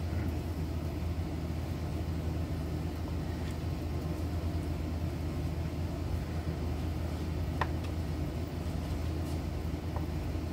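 A steady low hum with a few faint, light clicks.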